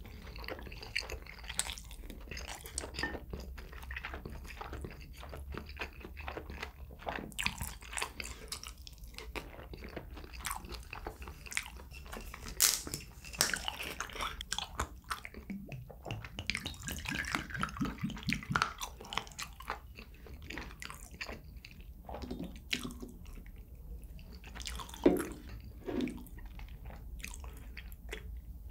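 A person chewing and biting food close to the microphone: wet mouth sounds and crunchy clicks in irregular bursts. A few louder bites stand out, the loudest about 25 seconds in.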